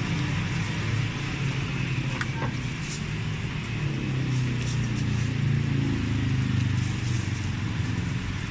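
Busy street ambience: a steady low rumble of motor traffic, with a few faint clicks and taps over it.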